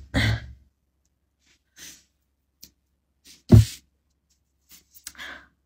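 A woman's brief non-speech breath and throat sounds. The loudest is one short, sharp breathy burst about three and a half seconds in, like a cough, sneeze or heavy exhale. A softer breath comes near the end.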